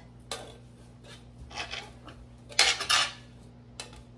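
A spoon scraping condensed cream of chicken soup out of a tin can into a glass bowl, heard as a few short metallic scrapes and clicks, the loudest about three seconds in, along with a knife cutting cooked chicken on a wooden board.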